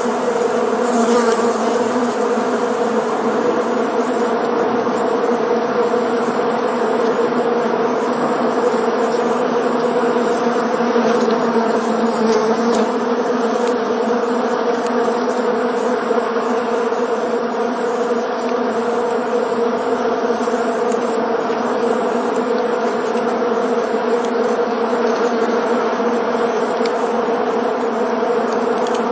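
Many honeybees flying around together, a steady swarm buzz with a constant drone near 250 Hz and its overtones.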